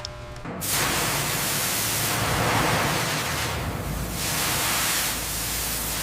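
A loud, steady hiss that starts about half a second in. Its top end thins briefly twice.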